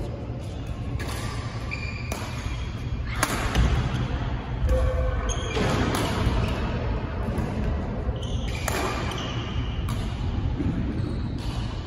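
Badminton rally in a large indoor hall: about six sharp racket strikes on the shuttlecock, one every one to three seconds, with brief shoe squeaks on the court floor. A steady low hum runs underneath.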